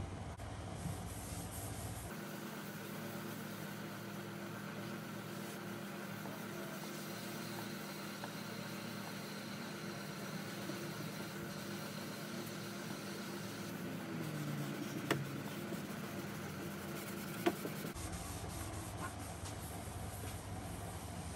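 A hand rubbing oil into a bare wooden table top, a soft rubbing over a steady background hum, with two brief sharp clicks near the end.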